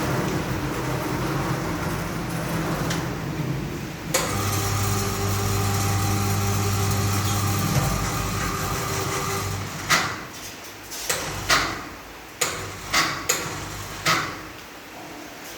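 A steady machine hum starts suddenly about four seconds in, runs for about four seconds and fades out. It is followed by about seven sharp knocks spread over four seconds.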